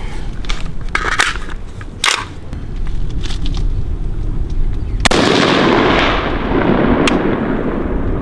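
AR-15 rifle firing single aimed shots of 77-grain 5.56 ammunition, a second or more apart. The loudest shot, about five seconds in, is followed by a long rushing tail that fades away.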